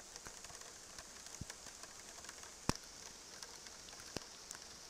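Faint steady hiss of outdoor ambience with scattered small ticks and clicks, two of them louder, about midway and near the end.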